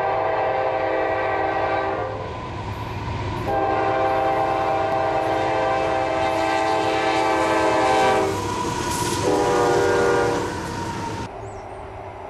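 Diesel freight locomotive's air horn sounding a series of long blasts over the low rumble of the approaching train: one blast, then after a short pause a long held blast, then another shorter blast. The horn stops about ten and a half seconds in, and the sound drops abruptly to a quieter rumble shortly after.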